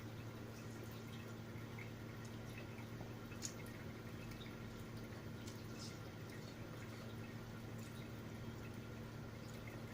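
Faint mouth and eating sounds from eating spicy instant noodles: a few small wet clicks, over a steady low hum.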